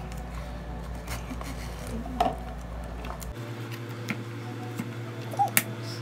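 Small cardboard box handled and turned over in the hands: light scrapes and a few sharp taps, the loudest about two seconds in and twice more near the end, over a steady low hum.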